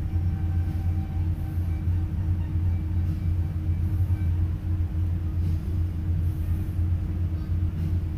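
Towboat's diesel engines running steadily, a deep drone heard from inside the wheelhouse.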